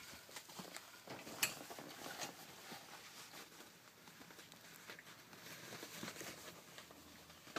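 Rough collie puppies scampering about: faint pattering and scuffing of small paws on the padded floor with light rustling, and one sharper click about a second and a half in.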